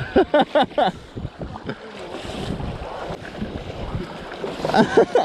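Wind buffeting the microphone over the splashing and slapping of choppy tide-race water around a sea kayak, the water standing up in short steep waves. A voice is heard briefly in the first second and again near the end.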